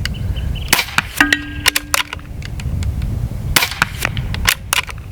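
Benjamin Marauder .22 PCP air pistol shooting twice, about three seconds apart, with sharp clicks between the shots, one of them followed by a brief ringing tone.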